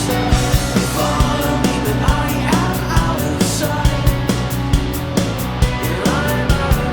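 Progressive rock band track playing, with a steady drum beat and melodic lines that bend in pitch.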